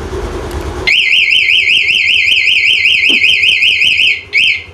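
Honda Activa scooter's engine running, cutting out about a second in as its aftermarket anti-theft alarm siren starts. The siren is a loud electronic warble, sweeping up and down several times a second for about three seconds, then gives one short final burst.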